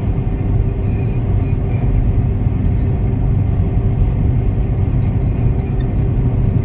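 Steady low road and engine rumble inside a moving car, with a faint steady hum.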